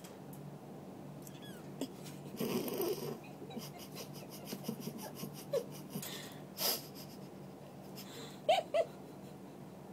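An American Curl kitten gives two short, high mews near the end, each rising and falling, over a steady low hum. Brief scuffling noises come earlier.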